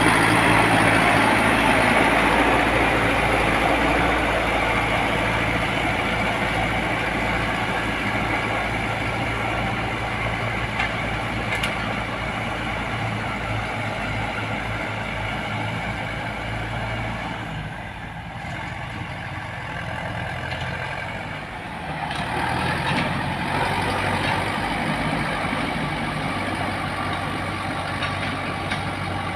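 Diesel engine of heavy road-works machinery running steadily, fading gradually to its quietest about eighteen seconds in, then growing louder again a few seconds later.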